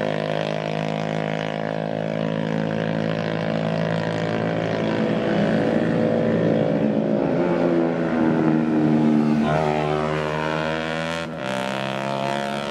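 Motorcycle engine running hard at high revs, held steady, then climbing in pitch about ten seconds in, with a brief drop just after.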